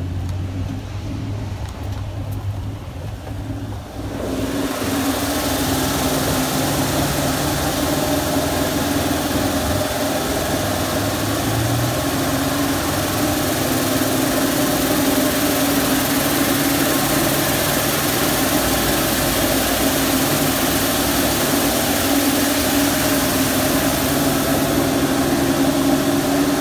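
High-pressure water jets of a touch-free car wash gantry spraying a car, a steady hiss that starts about four seconds in, over the steady hum of the wash's pump machinery.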